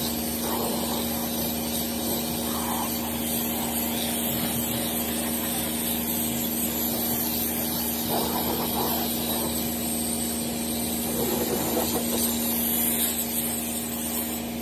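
Kärcher K3 Power Control pressure washer running, its pump motor giving a steady hum under the hiss of the water jet spraying onto a car's bodywork to rinse off mud. The spray hiss swells a couple of times as the jet moves over the panels.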